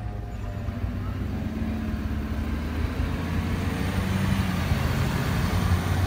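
A road vehicle driving past close by, its engine hum and tyre noise growing louder toward the end. Under the start, the last of an outdoor warning siren's falling tone fades out as it winds down.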